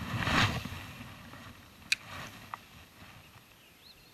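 Whoosh of a spinning rod being swung out in a cast, with jacket rustle, then two sharp clicks from the spinning reel about two seconds in, the second fainter.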